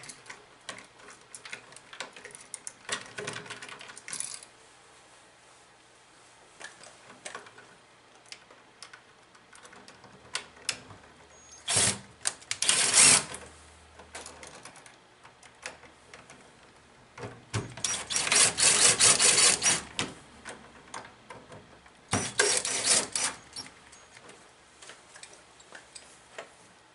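Cordless drill driving the mounting screws of a single-pole switch into a plastic electrical box, in three short bursts a few seconds apart. Light clicks and rustles of the switch and wires being pushed into the box come between them.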